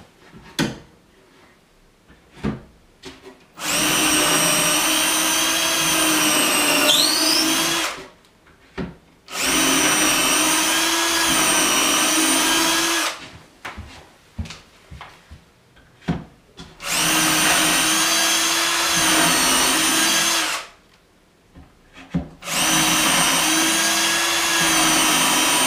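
Festool CXS cordless drill running in four steady bursts of about four seconds each, drilling holes into a plywood cabinet panel. Light clicks and knocks fall between the bursts as the drill is moved.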